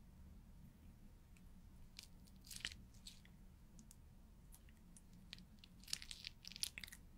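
Faint, short scratchy strokes of a paint marker on a clear sheet, in two brief clusters: one about two and a half seconds in and a longer run near the end.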